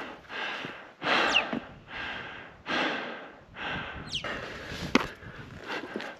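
A person breathing hard and fast, about one loud breath a second, close to the microphone, from the exertion of a steep climb. A sharp click comes about five seconds in.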